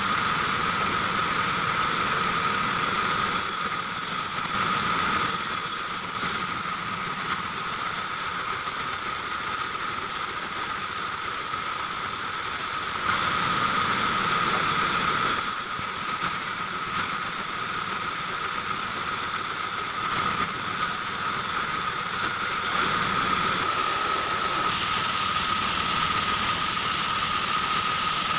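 Large stationary band saw running and cutting an old reclaimed wooden plank: a steady high whine over the noise of the blade, a little louder for a couple of seconds around the middle.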